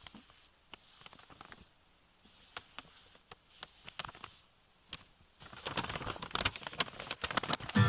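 Soft rustling and crackling in short spells separated by silent gaps, turning denser and louder over the last two seconds.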